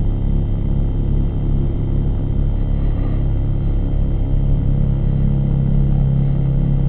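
Steady drone of a ZOHD Orbit FPV flying wing's electric motor and propeller, picked up by its onboard camera, with wind rushing over the microphone and a constant low hum.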